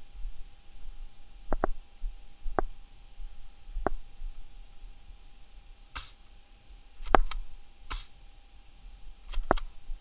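About ten short, sharp clicks and knocks at irregular intervals, some in quick pairs, over a faint steady tone.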